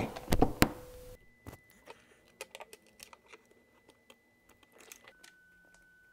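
Light clicks and taps of a plastic wiring connector and cable being handled. A quick cluster of louder clicks comes at the start, then sparse faint ticks.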